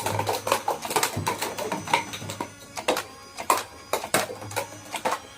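Plastic toy gun mechanism clicking: a run of sharp, irregularly spaced clicks.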